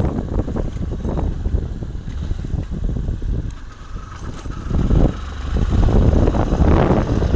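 Motorcycle running under way, a heavy low rumble that eases off briefly about four seconds in and then builds back up.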